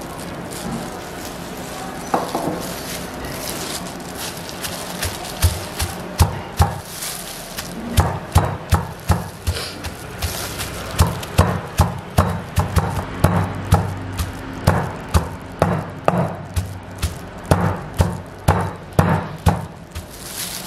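Wooden pestle pounding a dry shredded mixture in a wooden mortar: dull thuds that begin a few seconds in and settle into a steady beat of about two strokes a second.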